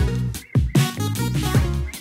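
Background music with a deep bass line and a drum beat.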